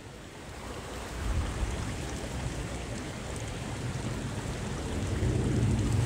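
Wind buffeting the microphone, a low rumble that swells about a second in and again near the end, over the steady rush of a small forest stream.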